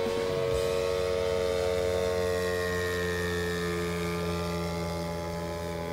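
Engine and propeller of a giant-scale radio-controlled biplane in flight, a steady drone whose pitch drops slightly as it passes.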